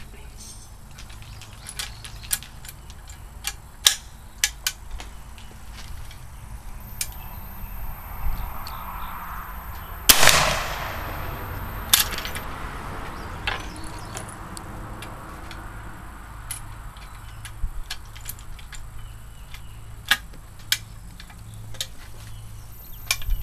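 Small Sharps-style single-shot rifle being handled, with scattered metallic clicks of the action. About ten seconds in it fires once, a loud sharp shot with a brief echo. A second sharp crack follows about two seconds later, then more clicks.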